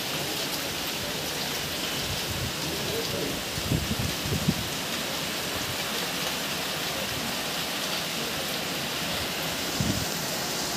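Heavy rain falling steadily on clay-tiled roofs, with a few short low thumps about four seconds in and again near the end.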